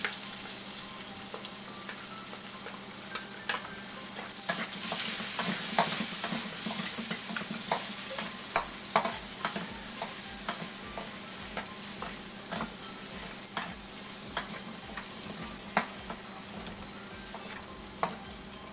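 Chopped onion and garlic sizzling in hot oil in a metal wok while being sautéed, with a metal spoon clinking and scraping against the pan at irregular intervals. The sizzle eases off toward the end.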